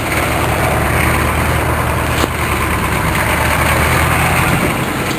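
Vehicle engine running steadily, with a short click about two seconds in.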